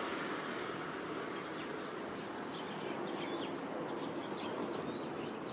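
Scattered short bird chirps over a steady outdoor background hiss.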